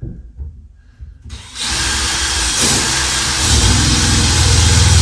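Power drill starting about a second in and running steadily as it bores into a timber floor joist, loading up with a deeper hum partway through. The bit is cutting into the joist rather than through the gap between joists.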